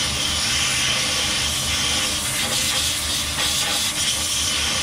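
Compressed-air blow gun blasting into the lathe chuck and the tapped part: a loud, steady hiss of air, over the low hum of the running lathe.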